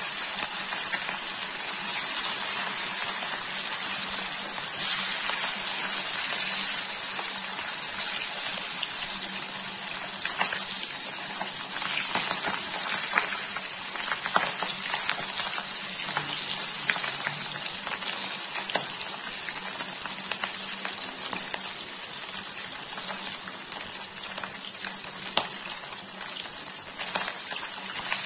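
Fish pieces shallow-frying in mustard oil in a kadhai over a high flame: a steady sizzle with scattered spits and crackles, most of them through the middle.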